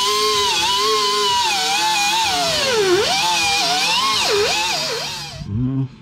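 Grinder cutting through the sheet-steel floor pan of a 1976 Chevrolet C10, its motor whine dipping in pitch again and again as the disc is pressed into the metal. It dies away about five and a half seconds in.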